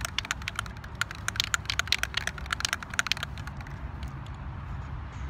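Rust-Oleum spray paint can being shaken, its mixing ball rattling in a fast run of clicks that stops about three seconds in.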